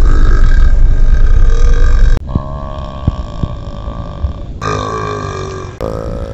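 Person belching: a very loud, low, long belch that cuts off about two seconds in, then further long, pitched belches, each starting and stopping abruptly.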